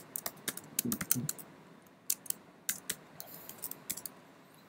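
Typing on a computer keyboard: quick, irregular key clicks, thick in the first second and a half and sparser after that.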